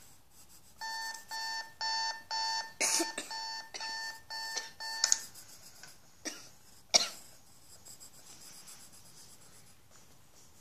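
Electronic alarm beeping in quick groups of pips, about two groups a second, which stops after about four seconds. A second or so later come two sharp knocks, the second the loudest sound.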